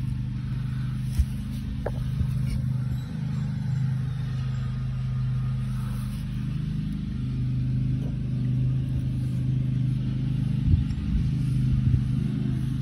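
A steady low mechanical hum from a running machine, with a few short, light knocks, one about a second in and two near the end.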